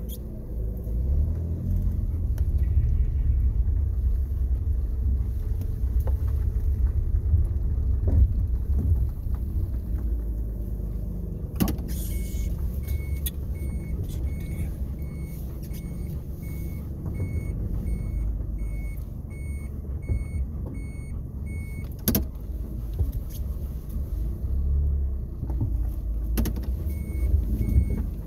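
Car running, heard from inside the cabin as a steady low engine and road rumble. From about twelve seconds in a car's electronic beep repeats at an even pace, stops, and starts again near the end, with a couple of sharp clicks along the way.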